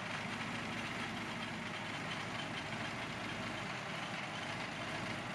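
Packard 1M-1242 V-12 racing engine, converted by Dodge to 723 cubic inches with a supercharger, running steadily on its stand.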